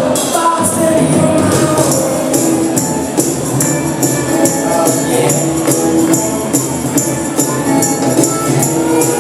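Music with a steady beat and tambourine-like jingling percussion over held notes.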